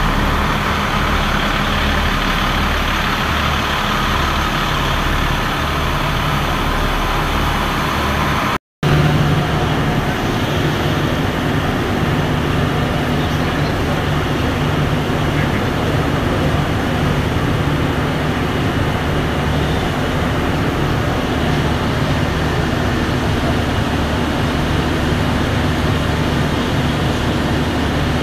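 Steady machinery drone in a vehicle assembly plant, with low humming tones under a dense noise. The sound cuts out for a split second about nine seconds in, then carries on with a steadier low hum.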